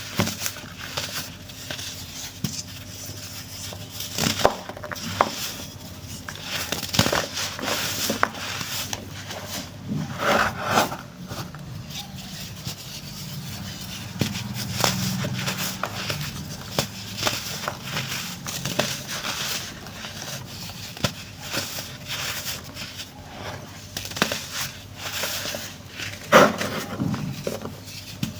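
Pressed baking soda being crushed, crumbling with irregular crunches and crackles, a few louder crunches about ten seconds in and near the end.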